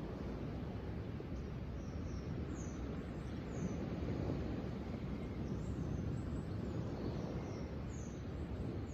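Small birds chirping: short, high, falling chirps repeated every second or so, over a steady low rumble of outdoor background noise.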